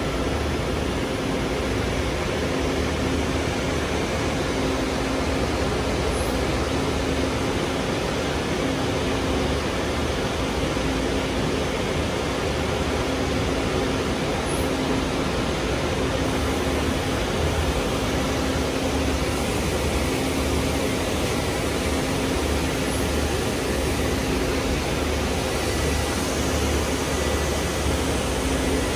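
1999 Rollomatic 600x CNC tool and cutter grinder running a grinding cycle: the wheel spindle turning and coolant spraying from the nozzles onto the wheel and tool, heard as a steady hiss over a steady low hum.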